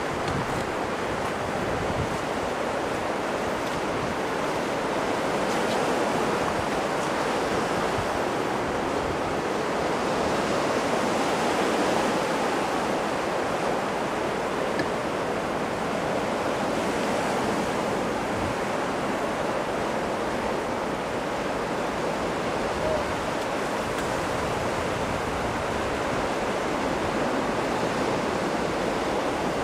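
Sea surf and wind on the microphone, a steady noise with no clear train sound standing out.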